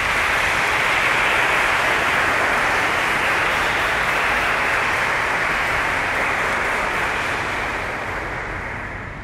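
Audience applauding after the music ends, a dense steady clapping that starts to die away near the end.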